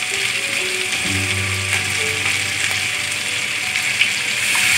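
Chopped onions and green chilli sizzling in hot oil in a kadai as a wooden spatula stirs them. A single sharp knock near the end.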